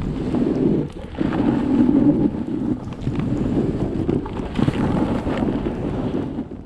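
Wind buffeting the camera's microphone while moving down a snowy ski slope: a steady low rushing that drops away briefly about a second in and fades out at the very end.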